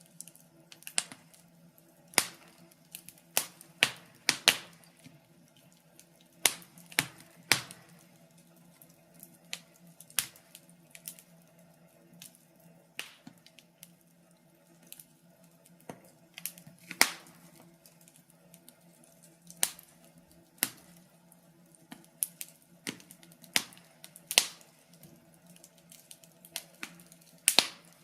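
Wood fire crackling in a fireplace: irregular sharp pops and snaps, some loud and some faint, over a faint steady low hum.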